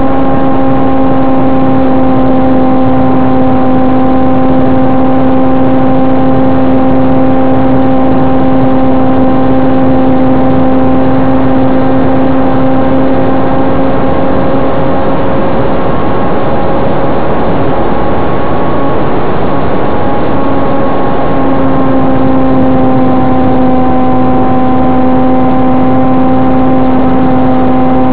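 Foam electric RC airplane's motor and propeller whining steadily in flight, heard from a camera taped to the airframe, over a steady rushing noise. The pitch wavers about two-thirds of the way through, then settles slightly lower.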